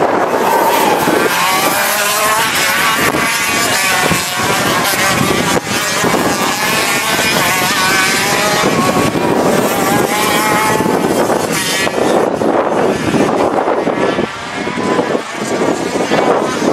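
Several two-stroke gearbox racing kart engines running hard on track, their pitch rising and falling as the karts accelerate and slow through the corners.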